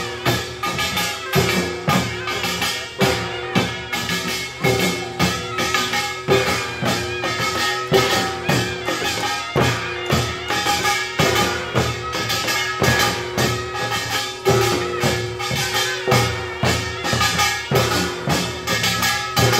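Korean samulnori percussion: janggu hourglass drums and buk barrel drums struck together in a fast, driving rhythm, with ringing held tones sounding between the beats.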